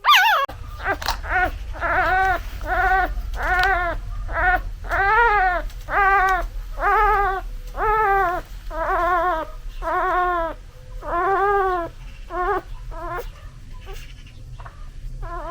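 Newborn puppy crying for its mother: a long series of short, high whimpering cries, each rising and falling in pitch, about one a second, growing fainter near the end, over a low steady rumble.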